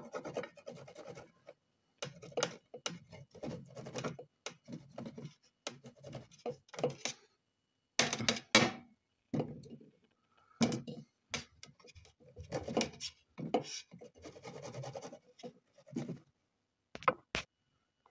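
Garlic and onion being grated on a flat stainless steel hand grater resting on a steel tray: short runs of rasping strokes with brief pauses. A few sharp metallic knocks come from the grater and tray, the loudest a little after the middle.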